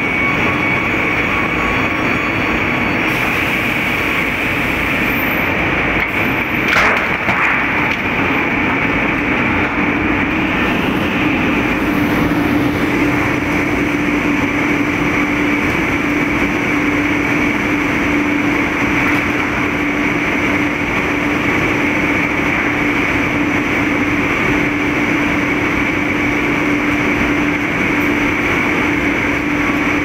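Forta sawmill line running under commissioning: the canter's circular saws and the chain conveyors and transfer deck make a loud, steady machine noise. A steady high whine runs throughout, a lower hum joins about ten seconds in, and there is a brief louder swell about seven seconds in.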